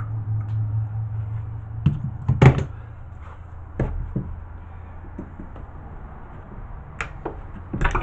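Snips and pliers cutting and prying the metal of a microwave magnetron: a few sharp metallic snaps and clicks, the loudest about two and a half seconds in, over a low steady hum.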